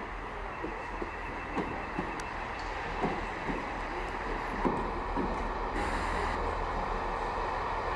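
Class 166 diesel multiple unit arriving slowly at a station platform: its wheels knock over rail joints and points about twice a second under a steady low engine drone. About five seconds in, a faint high steady squeal of braking joins.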